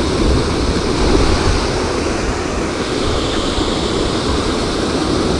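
Wind blowing across the microphone, a steady rushing noise with a low rumble.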